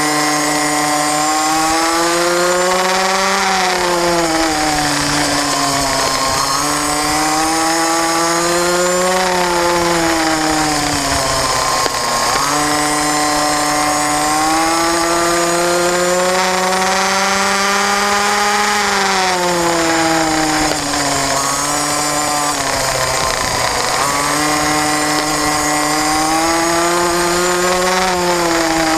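Small racing minibike engine at high revs, pitch climbing steadily along each straight and dropping sharply as the rider slows for the corner, about five times over.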